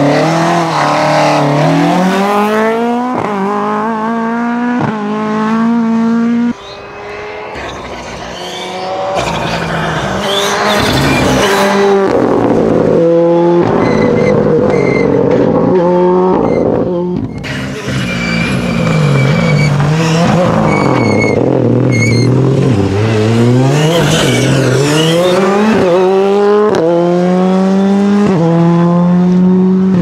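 Rally cars at full throttle on a tarmac stage, a Mk2 Ford Escort and then a Ford Fiesta R5: the engine revs climb hard and drop with each quick upshift, over and over. In the middle the pitch falls as a car slows down through the gears, then it climbs again as the car accelerates away through the gears.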